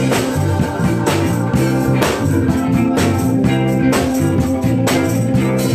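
Band music with guitar and drums and no vocals, keeping a steady beat.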